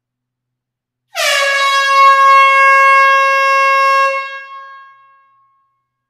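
A horn sound effect: one long loud blast starting about a second in. The pitch dips briefly at the onset, then holds steady before the blast fades out over its last second or so.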